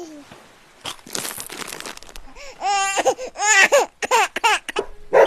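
Crinkling, crackling rustle, then a quick run of short, high cries that rise and fall in pitch, several in a row.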